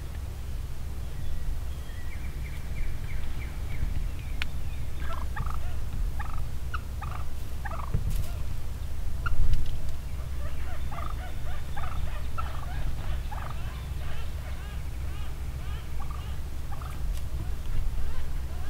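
A flock of wild turkeys calling close by: many short call notes in quick runs, busiest in the second half.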